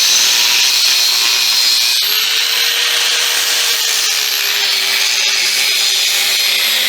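Power saw cutting through steel pipe, a steady loud grinding hiss. Its motor pitch rises about two seconds in and then slowly sags as the blade works through the cut.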